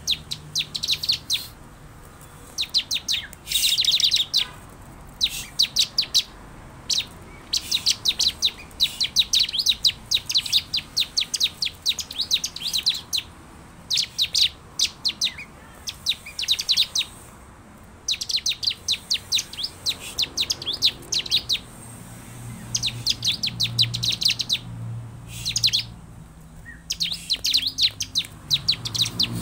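Bar-winged prinia (ciblek) calling: rapid strings of sharp, high chirps in bursts of one to two seconds, repeated with short pauses between.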